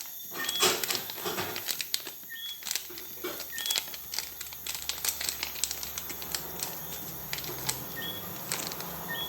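All-purpose seasoning being shaken from its container onto raw cow kidney: a run of irregular rattling clicks and light pattering.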